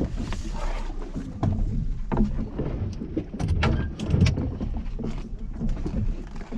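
Fishing boat deck sounds: a steady low rumble with scattered knocks and clicks, loudest about four seconds in, and a brief hiss near the start.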